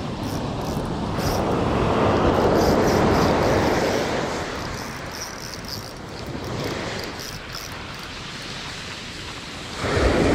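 Surf breaking and washing up the shore, swelling over the first few seconds and then easing off, with a louder wash starting near the end.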